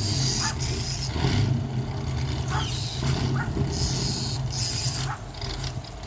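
Northern mockingbird giving short, harsh calls in repeated bursts, about one a second, over a steady low hum.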